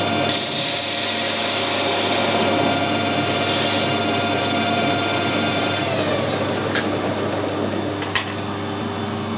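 Metal lathe spindle running with a steady whine while a carbide insert tool cuts the end of a metal bar, a high hiss of cutting for the first few seconds. About six seconds in the spindle winds down, its pitch falling, and a couple of small sharp clicks follow.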